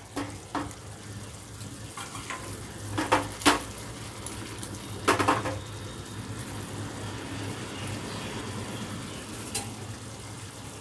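Thick taro (arbi) curry gravy sizzling in a frying pan while a slotted spatula stirs it, scraping and knocking against the pan several times, most sharply around three and five seconds in.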